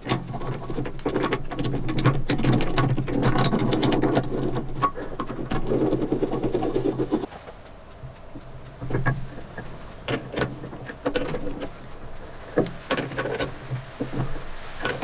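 Jaws of a four-jaw lathe chuck being wound in their screws, a steady mechanical whirring with clicks that stops about seven seconds in. After that come scattered metal clicks and knocks as a cast iron flywheel is handled against the chuck jaws.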